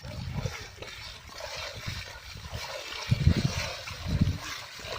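Muddy water splashing and sloshing as bullocks drag a leveller through a flooded paddy field, with low thuds about three and four seconds in.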